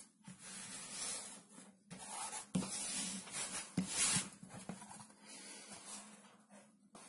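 Palms rubbing and smoothing black wood-grain film onto a hardboard panel: repeated dry swishing strokes, with two light knocks a little past the middle.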